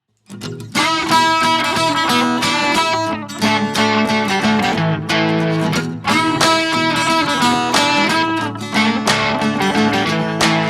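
Background music led by plucked and strummed guitar.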